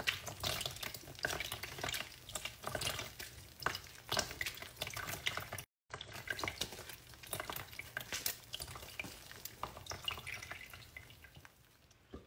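Blended grape pulp squeezed by hand through a metal mesh strainer: irregular wet squelching and crackling, with juice dripping into a plastic tub. The sound thins out near the end.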